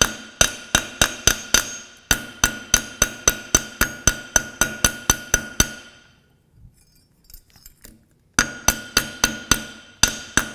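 A hammer striking a steel hinge on an anvil in a steady run of ringing blows, about three a second, denting the hinge to give it an aged look. The blows stop for a couple of seconds past the middle, then start again.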